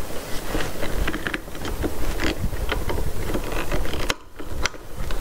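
Metal ball-joint mount being tightened by hand on an aluminium mounting plate: irregular small clicks, scrapes and rattles of metal parts being turned, briefly quieter about four seconds in.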